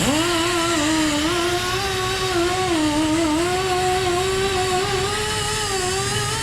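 An electric motor on tire-shop machinery starts up and runs at speed: a whine that climbs quickly in pitch at the start, then holds, wavering slightly as the load changes.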